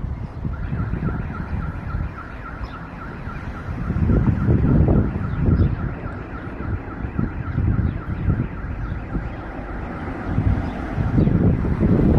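Engine rumble of a McDonnell Douglas MD-82 jet airliner flying overhead, its two rear-mounted Pratt & Whitney JT8D turbofans heard through gusts of wind on the microphone. Over it an electronic alarm beeps rapidly and evenly, stopping near the end.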